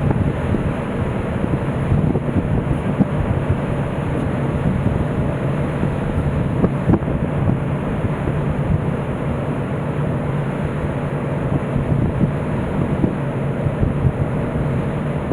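Wind buffeting the microphone on the deck of a moving car ferry: a constant low rumble broken by frequent short gusty thumps, with the ship and water beneath it.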